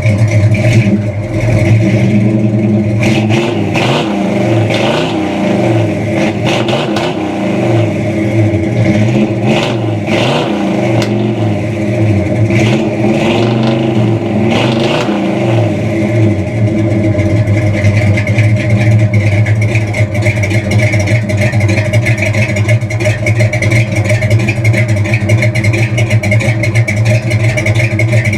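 A 1963 Chevy C30's 327 V8 running through dual Flowmaster mufflers, revved in a series of throttle blips that rise and fall for the first half or so, then settling to a steady idle.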